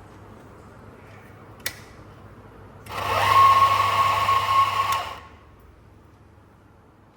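A click, then about a second later the Conti coffee machine runs for about two seconds with a steady mechanical buzz. Its whine rises in pitch as it starts, and it stops abruptly.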